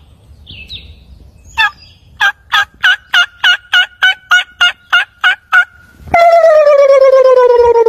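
Wild turkey calling: a series of about a dozen short yelps, roughly three a second, then a loud, long call that falls steadily in pitch for nearly two seconds.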